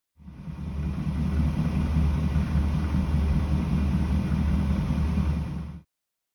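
AEG tumble dryer running with a loud, steady low rumble, the noise that the owner puts down to a broken motor. It builds up over about the first second and cuts off suddenly near the end.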